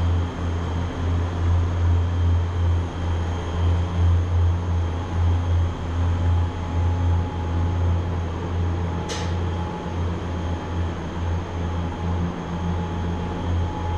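Steady low mechanical hum with faint, steady high-pitched whines over it, from refrigerated freezer display cabinets running. A single short click about nine seconds in.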